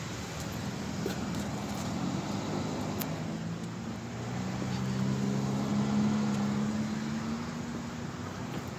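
A car engine running, with a low hum that grows louder around the middle and eases off near the end, over a steady background hiss.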